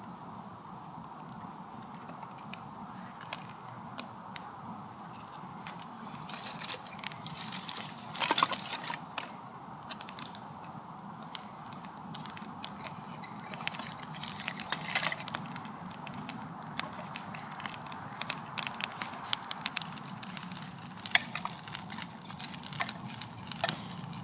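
Wood campfire crackling, with irregular sharp pops and snaps scattered throughout and a brief flurry of louder pops about eight seconds in.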